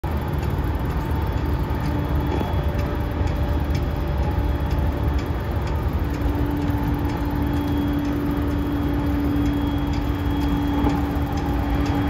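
Faulty ceiling air-conditioning unit in a JR East E233-series motor car making an abnormal noise: a steady hum that holds from about halfway through, with a light regular ticking, over a low rumble.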